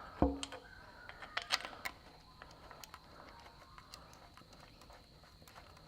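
One low knock just after the start, then a scatter of light clicks and taps, busiest around a second and a half in: a sealant-coated timing-cover housing being handled and set in place against a Perkins diesel engine block.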